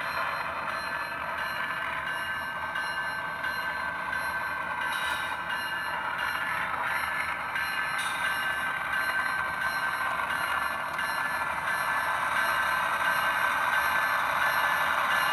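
HO-scale model of a GE ET44AC (GEVO) locomotive running, its ESU LokSound decoder playing the diesel engine sound through the small onboard speaker, thin and without bass, growing steadily louder toward the end.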